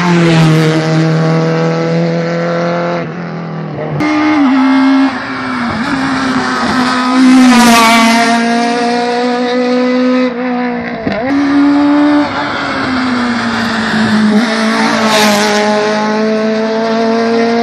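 Small hatchback rally cars passing one after another at full throttle on a closed road stage, engines revving high with the pitch stepping at gear changes and peaking as each car goes by.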